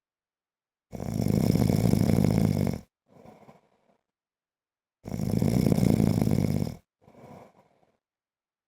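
A man snoring in his sleep: two loud, rattling snores about two seconds long, roughly four seconds apart, each followed by a short, much softer breath.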